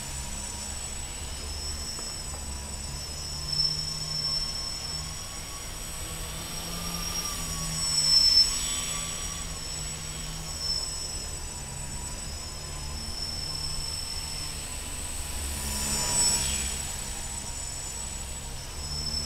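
A small electric RC plane's motor and propeller whining, its pitch wavering up and down with the throttle. It swells louder a few times as the plane passes close, most strongly about eight seconds in.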